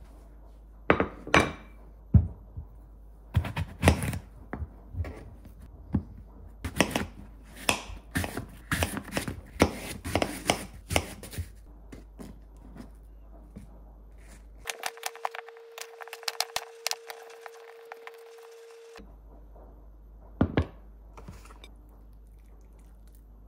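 Kitchen knife cutting through a whole red apple on a cutting board: a quick series of sharp crunchy cuts and knocks of the blade against the board over about ten seconds. After that comes a quieter stretch with a steady hum and a few light clicks, and a couple more knocks near the end.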